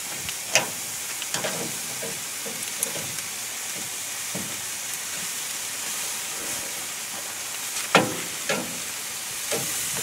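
Pork chops sizzling on a charcoal grill grate, a steady hiss of fat in the heat. A few sharp clacks of metal tongs on the chops and grate, the loudest near the end, as the chops are turned.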